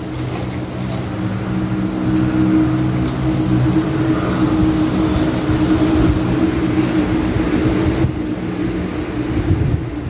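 Steady low machine hum from the nearby factory, several fixed pitches that grow louder and then fade out near the end, over wind rumbling on the microphone.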